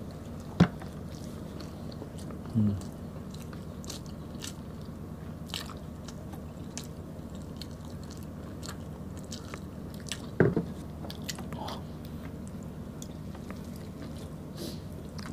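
Close-up eating sounds of people chewing beef stew and rice eaten by hand: wet chewing with scattered small mouth clicks over a steady low hum, and a louder knock about ten seconds in.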